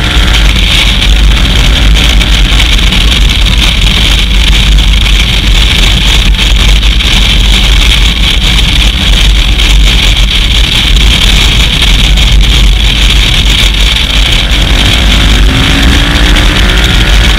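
Loud, constant wind noise buffeting a GoPro's microphone at road speed, with the KTM 990 Adventure's V-twin engine faintly underneath. Near the end the engine note rises as the bike accelerates.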